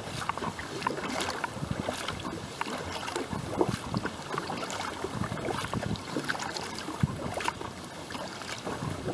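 Sea kayak being paddled on calm water: a double-bladed paddle dipping stroke after stroke, with drips from the blades spattering the surface, over a haze of wind on the microphone.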